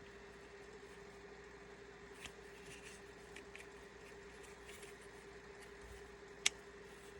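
Faint small clicks and scrapes of the airsoft rifle's lower receiver parts being handled while the bolt catch lever is worked loose, with one sharp click about six and a half seconds in, over a steady low hum.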